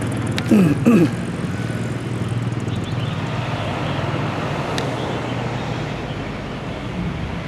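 Steady low engine hum with a noisy hiss over it, easing slightly near the end.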